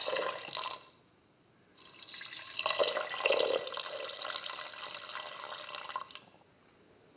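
A thin stream of water pouring into a steel pressure cooker pot and splashing onto beef and potato pieces. It stops about a second in, starts again a moment later, and stops for good about six seconds in.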